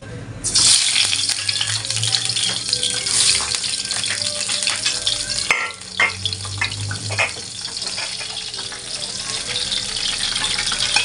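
Pieces of tuna frying in hot oil in a stainless steel pan: a loud, steady sizzle that starts about half a second in, with sharp pops and crackles spattering around the middle.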